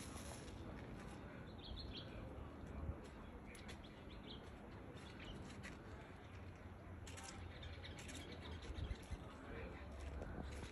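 Quiet ambience with faint bird chirps now and then, and a few soft clicks.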